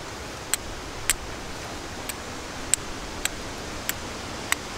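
Viking-style steel fire striker struck down across a flint, about seven sharp clicks at uneven intervals of half a second to a second, over a steady hiss.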